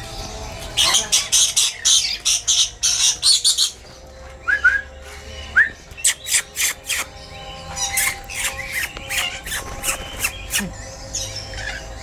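Rainbow lorikeets screeching in quick runs of harsh shrieks, several a second. A few short, curved chirps fall between the runs.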